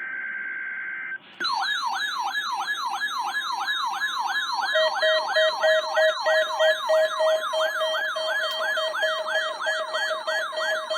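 The end of an Emergency Alert System digital header burst (SAME data tones), then, about a second and a half in, an electronic alert siren: falling sweeps repeating about three times a second. A steady lower tone joins about halfway through. This opens a NOAA Weather Radio required weekly test.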